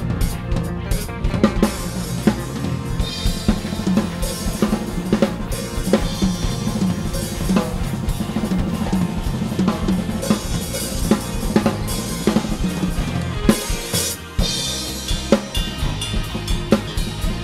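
Acoustic drum kit played busily over a backing track: rapid kick, snare and tom strokes, with stretches of cymbal crashes and a brief stop about fourteen seconds in.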